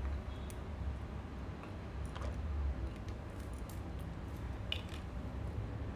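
Faint handling noises: a few soft clicks and rustles over a steady low rumble.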